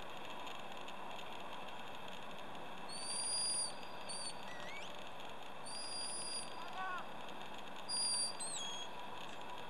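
Handler's sheepdog whistle giving commands to a working Border Collie: a series of high, steady whistle blasts starting about three seconds in: a long one, a short one, another long one, and a last that ends in a falling slide. Faint steady outdoor hum underneath.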